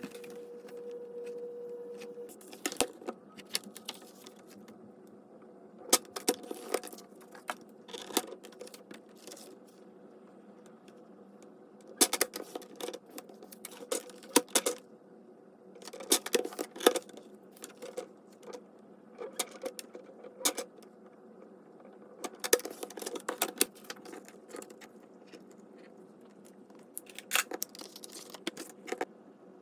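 Metal binder rings clinking and rattling in irregular clusters of light clicks as the ring-bound paper journal is handled.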